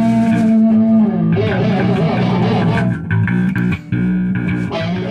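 Electric guitar and bass guitar playing loud rock with no drums: a long held note, then a wavering note, then a run of short choppy chords with a brief break near the end.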